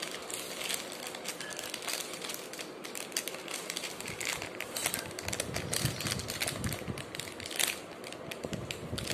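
Plastic wrapper of a dog treat crinkling and crackling in irregular clicks as hands struggle to tear it open, with soft low thumps of handling about halfway through.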